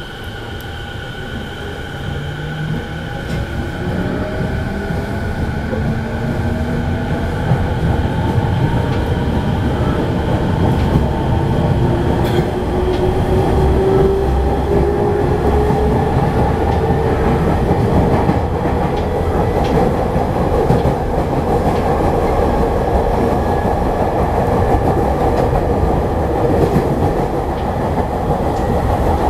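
Inside the motor car of a JR East 209 series (2100 subseries) electric train accelerating away from a station stop. The inverter and traction motors whine in several pitches that glide steadily upward, while the rumble of wheels on rails grows louder as the train gathers speed.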